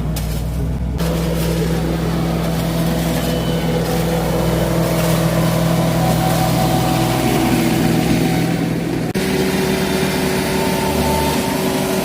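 An engine running steadily, a constant hum with several steady tones. It breaks off abruptly about nine seconds in and carries on right away at a slightly different pitch.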